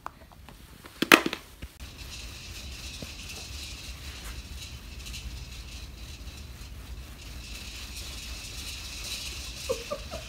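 A sharp knock about a second in, with a few fainter clicks around it, then a steady hiss and low hum.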